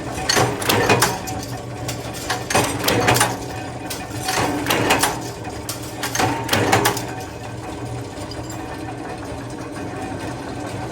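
Workshop machine running with a steady low hum, with short bursts of rapid metallic clatter about every two seconds; the clatter stops about seven seconds in, leaving the hum.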